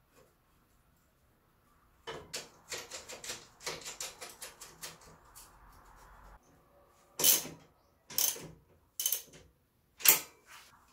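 Bicycle rear wheel and drivetrain turned by hand: a fast run of freewheel ticking, then a regular swish about once a second as the wheel goes round.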